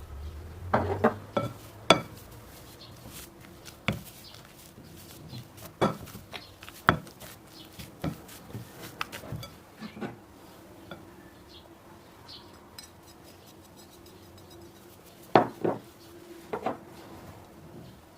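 Kitchen utensils clinking and knocking against dishes: scattered separate taps and clicks, with louder knocks about a second in and again near the end.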